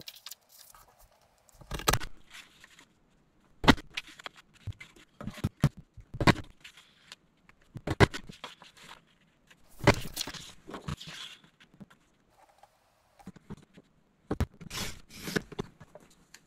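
Creative Memories Snow Capped Mountains border punch being pressed down again and again on dark blue paper, each press a sharp clack. Between presses the paper scrapes and rustles as it is slid along to line up the next cut.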